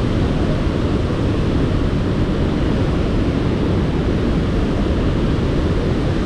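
Loud, steady rush of Burgess Falls, a large waterfall, heard close up from a kayak near its base.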